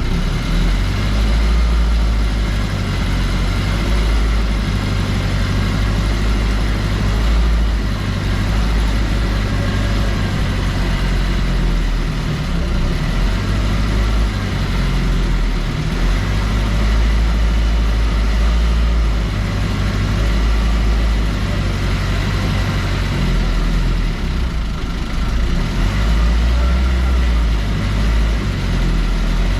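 A vehicle running: a steady low engine rumble that swells and fades unevenly throughout.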